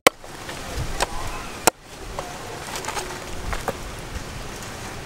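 A few sharp knocks of a cleaver chopping through a raw whole chicken onto a wooden chopping block, the loudest about a second and a half in, with birds calling faintly in the background.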